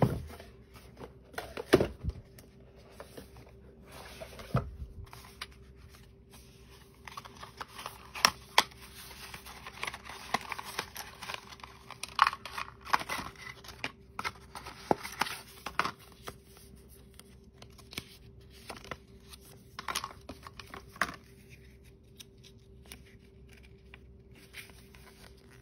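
Unboxing handling noise from cardboard and paper packaging: a few sharp knocks at first, then a long stretch of paper rustling and crinkling as a charging cable is unwrapped from its paper sleeve, with scattered clicks after it. A faint steady hum runs underneath.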